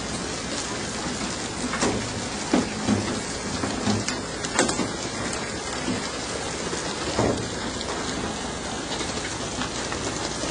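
Steady hiss of water spray and splashing along a fishing boat's hull and deck, with a few scattered thuds of fish landing on the deck.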